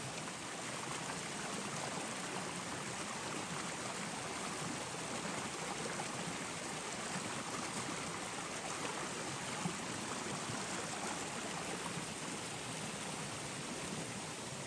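Steady rush of flowing water, like a stream running past.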